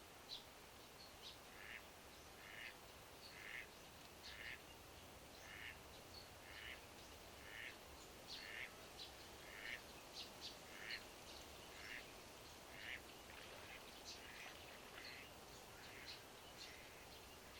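A bird calling faintly, a short call repeated about once a second, with higher chirps from other small birds among them.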